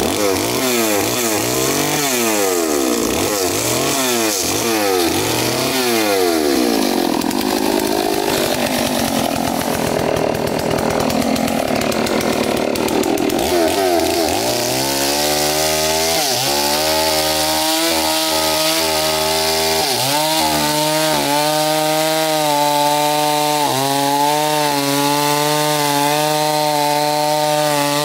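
Two-stroke chainsaw revving up and down over and over for the first several seconds, then from about halfway held at a steady high pitch as it cuts into the base of a large tree trunk, sagging briefly every few seconds under the load.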